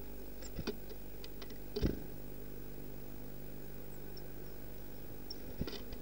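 Steady electrical hum from the bird-box camera's microphone, broken by a few sharp taps and knocks as a small tit lands and moves about on the feeder box. The loudest tap comes about two seconds in, and a short cluster comes near the end as the bird arrives at the seed tray.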